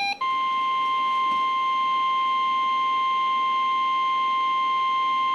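NOAA Weather Radio 1050 Hz warning alarm tone: a single steady, high electronic tone held at an even level after a brief gap at the start. It signals that a new weather warning is about to be read.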